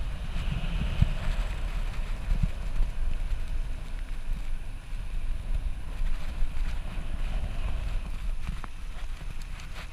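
Wind buffeting the microphone while moving along an outdoor path: a low, irregular rumble with a fainter hiss above it.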